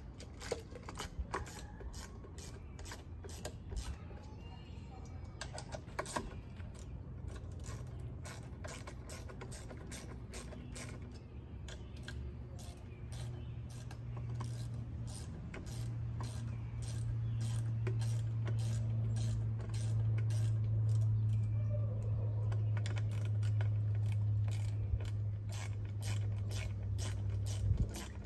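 A run of small sharp clicks and taps as screws are worked by hand into a hose-reel wall bracket on a wooden post. A low steady hum rises from about halfway through and becomes the loudest sound.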